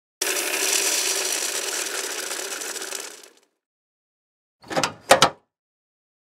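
Dromedary camel's rasping, rattling call lasting about three seconds, then a deer's short calls, three in quick succession about a second later.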